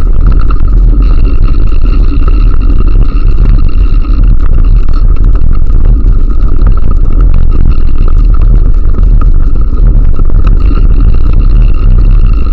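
Heavy wind rumble on the microphone of a riding bike, with a steady high whine and faint ticking over it.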